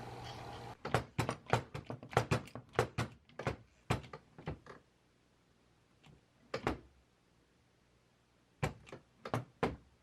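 A quick run of sharp clicks and knocks of hard objects being handled, about fifteen in four seconds, followed by a single knock and then three or four more near the end.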